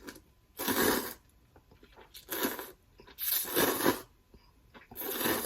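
Close-up eating sounds of a mouthful of spicy ramen noodles, in four noisy bursts about a second apart.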